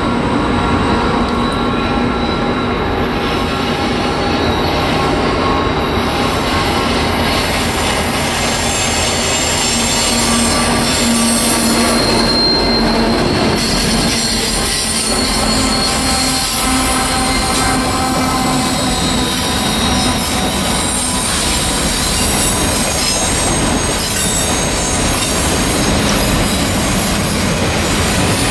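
Norfolk Southern freight train passing close by: a lash-up of diesel-electric locomotives goes by, followed by Triple Crown RoadRailer trailers rolling past on the rails. The sound is loud and steady, with thin steady tones over the rumble of the train.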